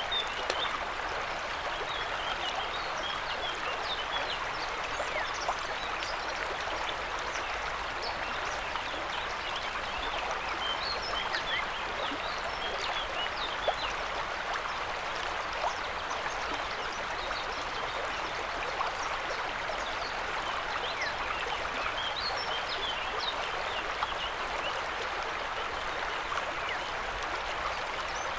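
River water running: a steady rush with many small, high bubbling splashes over it.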